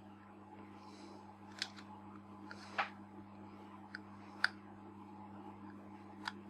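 Faint, sharp ticks and clicks of small metal lens parts and hand tools being handled, about seven in all with one short scrape near the middle, while the aperture-click leaf spring is worked into place. Under them runs a steady low electrical hum.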